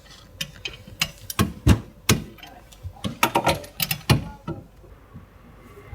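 Irregular metallic clicks and knocks of hand tools and car parts being handled, with a quick cluster of sharp knocks in the middle.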